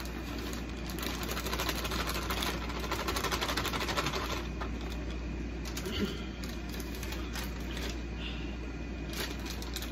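Plastic bag of shredded cheese crinkling and rustling as the cheese is shaken out into a pot of mashed potatoes: a dense, rapid rustle for the first four seconds or so, then fainter, scattered rustles.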